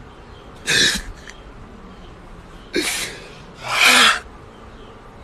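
A man crying: three loud, noisy sniffling breaths, one about a second in and two close together past the middle.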